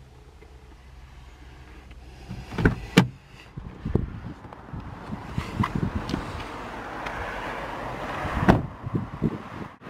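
Car door of a 2005 Honda Civic Type-R: the interior handle and latch click twice about three seconds in, then the door is opened, with background hiss rising and small knocks. The door shuts with one loud thud about a second before the end.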